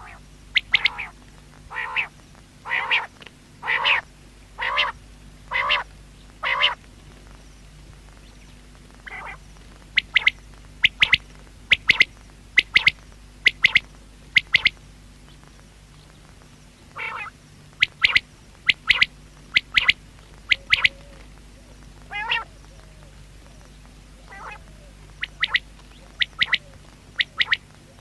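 Common quail calling: short, sharp whistled notes in quick groups of two to four, separated by pauses. At the start there is a slower run of lower, rougher notes, about one a second.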